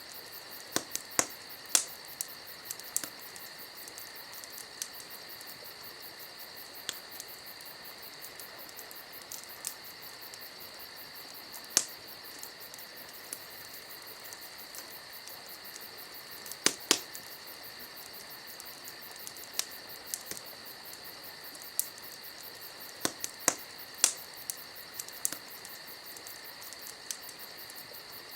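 Wood campfire crackling with irregular sharp pops, the loudest a few seconds apart, over crickets chirping steadily and continuously.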